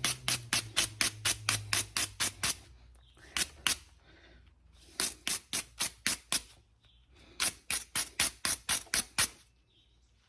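A hard brush scrubbing stuck grease off a brake caliper sliding pin in quick back-and-forth strokes, about five or six a second. The strokes come in four runs with short pauses between them, the longest run first.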